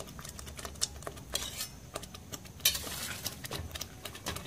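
Pot of thick chile adobo sauce simmering, with irregular popping and crackling clicks as dried chipotle chiles are dropped into it; one sharper click about two and a half seconds in.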